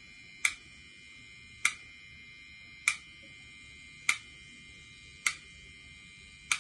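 Six sharp clicks from a faulty Honeywell mid-position motorised valve head, evenly spaced about 1.2 s apart, over a faint steady whine. The repeated clicking is the fault that points to this valve.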